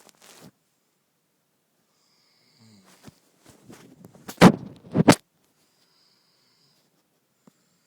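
A sleeping person snoring: two loud snore bursts about half a second apart, some four and a half seconds in, between quiet stretches.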